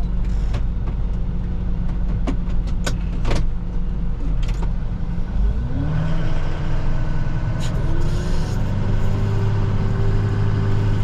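Plow truck's engine idling with a few sharp clicks, then about halfway through the engine note rises as the truck pulls away and settles into a steady higher drone.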